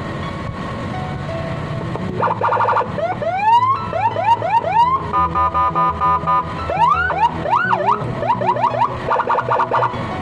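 Senken CJB100BD electronic siren sounding through a slim speaker. About two seconds in it starts cycling through its tones: a string of short rising whoops, a rapid chopped steady tone, a few up-and-down wails, quick chirps, then another rapid chopped burst, and it stops shortly before the end.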